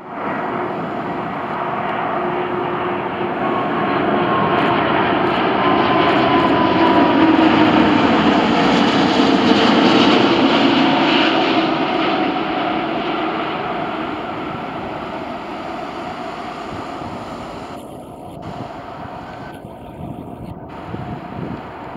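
Four jet engines of an Airbus A340 passing low overhead on final approach. The rush of jet noise builds to its loudest about ten seconds in, then fades as the airliner moves away. A faint whine drops slightly in pitch as it approaches.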